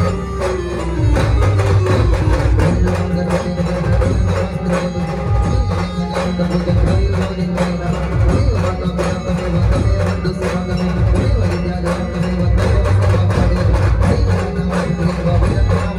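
Live band playing an aarti tune through a large sound system: a keyboard melody over hand-played drums and a heavy, steady bass beat.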